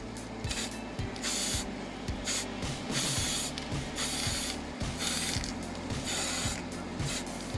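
Aerosol spray can of clear coat hissing in several short bursts, each under a second long, as clear is sprayed onto a painted wooden lure.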